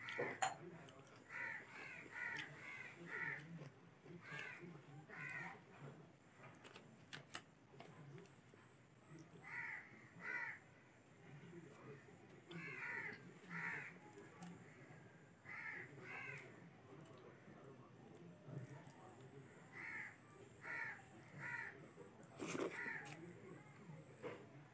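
A crow cawing over and over in short runs of two to five caws, with pauses between runs. Soft clicks and smacks of eating by hand run underneath, with one sharper click near the end.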